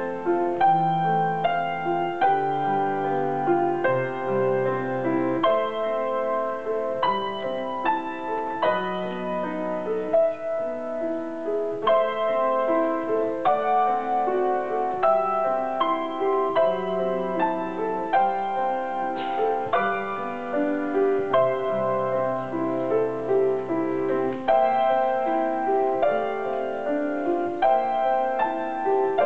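Grand piano played solo: a flowing, unbroken run of notes over low held bass notes.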